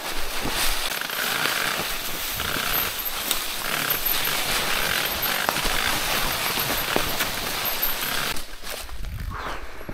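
Mountain bike rolling down a rocky trail covered in dry leaves: the tyres crunch over stones and leaves, and the bike gives sharp rattling clicks and knocks. The crunching thins out about eight and a half seconds in.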